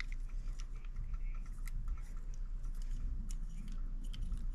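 Scattered light clicks and scrapes of small metal parts being handled while the VANOS seals and gasket are changed, over a steady low hum.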